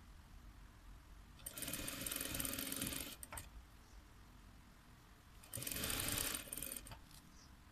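Electric sewing machine running in two short bursts of about one and a half seconds each, stopping in between, as it stitches a folded-over hem along the edge of a round piece of velvet.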